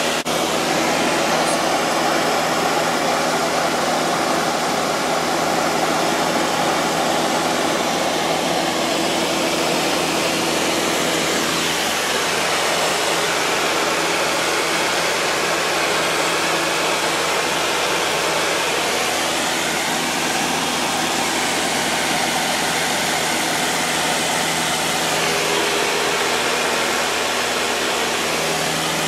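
Loud, steady drone of a 1960s four-seat light airplane's piston engine and propeller in cruise, with rushing air noise, heard from inside the cabin.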